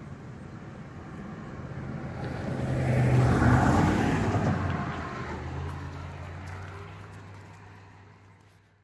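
A motor vehicle passing by: an engine hum that swells to its loudest about three and a half seconds in, drops slightly in pitch as it goes past, and then fades away.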